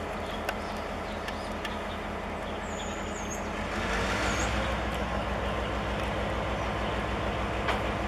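Taiwan Railway R159 diesel-electric locomotive's engine running at a standstill as a steady low hum. About four seconds in, the engine note steps up and gets louder, with a brief hiss.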